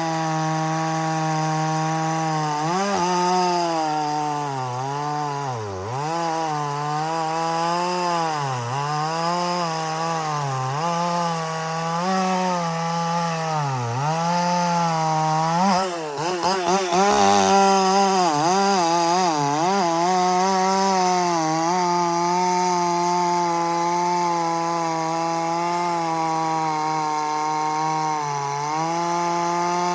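Echo CS-4510 two-stroke chainsaw at full throttle, its pitch dropping again and again as the chain loads up in the cut, then running steadily at high speed.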